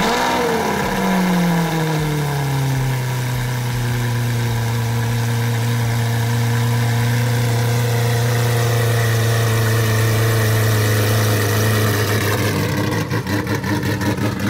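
Lamborghini Aventador SV's V12 running through a bare titanium header exhaust with no mufflers. It comes in suddenly at high revs, falls in pitch over the first few seconds and settles into a steady, fast idle. Near the end the sound turns choppy and uneven.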